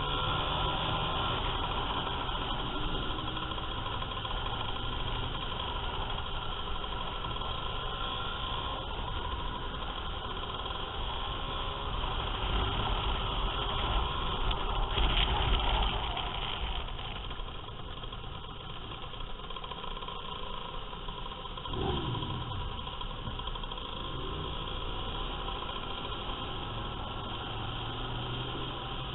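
Vintage Lambretta and Vespa two-stroke scooter engines running together at low speed in a slow group ride. The sound swells louder about halfway through. About two-thirds of the way in, one engine's pitch drops briefly as it eases off.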